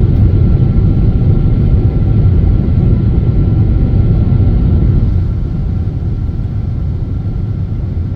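Airplane taking off: a deep, steady engine rumble with a faint high whine over it, growing somewhat quieter about five seconds in.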